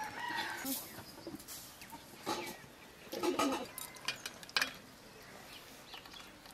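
Chickens clucking a few short times, with a few light clicks like a steel ladle touching steel dishes.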